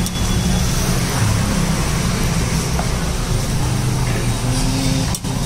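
Steady low rumble of motor-vehicle engines and street traffic.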